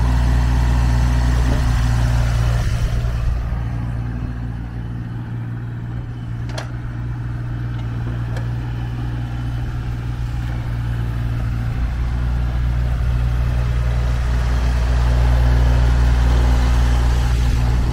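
JCB 8018 mini excavator's diesel engine running steadily. Its level drops a few seconds in and builds up again in the second half, with a single short click along the way.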